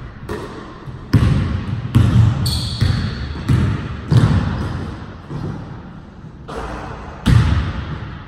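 Basketball dribbled on a hardwood gym floor: a string of bounces, each ringing on in the hall, the loudest about seven seconds in. A brief high squeak about two and a half seconds in.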